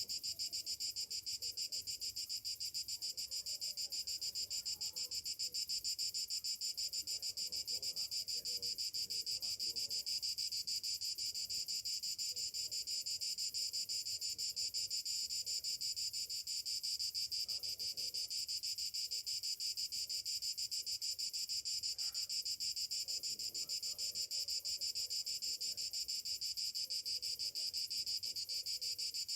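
Chorus of summer cicadas: a steady, dense, high-pitched buzz with a rapid fine pulse.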